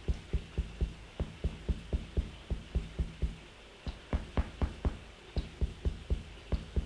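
Percussion massage on a person's body: rhythmic dull thuds of strikes landing in quick pairs, about three or four a second, a few of them sharper.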